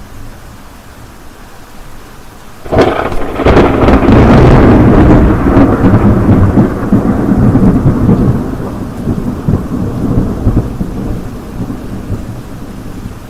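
Rain falling steadily, with a clap of thunder nearly three seconds in: a sudden sharp crack that rolls into a long, low rumble and dies away slowly over several seconds.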